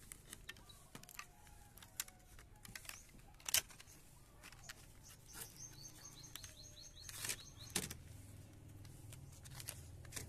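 Scattered clicks and knocks of a new piston ring set being unpacked and handled on a workbench: plastic packaging and steel rings. The loudest knocks come about a third of the way in and again about three-quarters in. A bird chirps a quick run of short high notes about halfway through.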